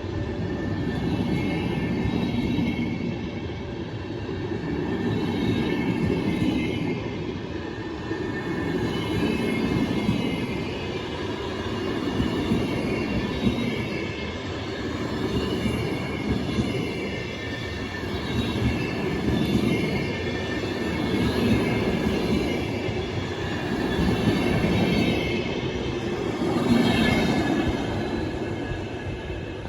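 A train rolling past on the rails, its level swelling and fading about every two seconds, with high-pitched wheel squeal.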